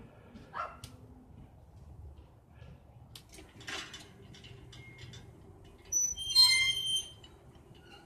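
A LiftMaster garage door opener runs with a faint steady hum, driving a sliding metal gate, with a few light clicks and knocks. About six seconds in comes a loud, high-pitched squeal lasting about a second.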